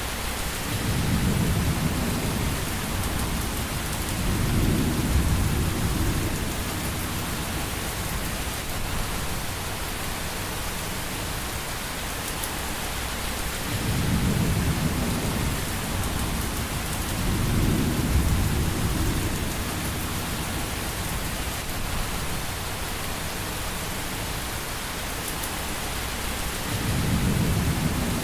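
Steady rain hiss with deep rolls of thunder swelling up and fading away about five times.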